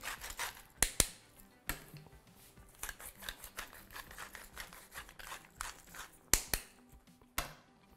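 Hand-twisted salt and pepper mills grinding over a pan: quick, gritty clicking crackles in short runs, with a few sharper single clicks among them.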